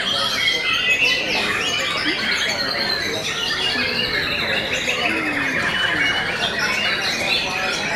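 Several caged white-rumped shamas (murai batu) singing at once in contest: a dense, continuous tangle of overlapping whistled phrases and fast trills, with voices murmuring underneath.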